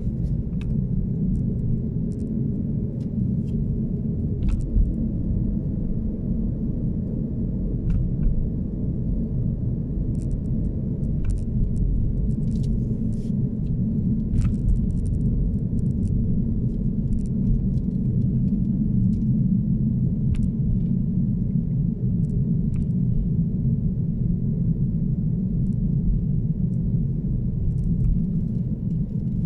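Steady low rumble of a car driving slowly, engine and tyre noise heard from inside the cabin, with scattered faint ticks.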